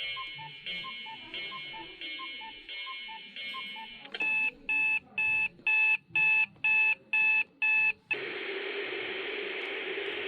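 Discovery alarm clock stepping through its built-in alarm sounds: first a steady ringing tone with a short note figure repeating about twice a second, then about four seconds in eight sharp electronic beeps at about two a second, then from about eight seconds a steady hiss with a low hum.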